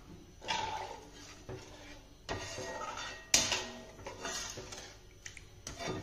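Steel slotted spatula stirring thin curry gravy in a kadai, scraping and knocking against the pan in about five strokes, the sharpest about three seconds in.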